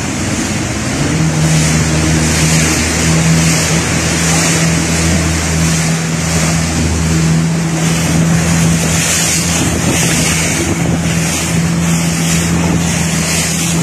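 A boat's 115-hp outboard motor running steadily at speed, its hum coming up about a second in, with water rushing past the hull and wind on the microphone.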